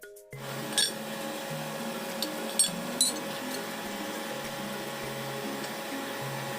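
A few sharp metallic clinks of tools or parts being handled, about three in the first half, over background music.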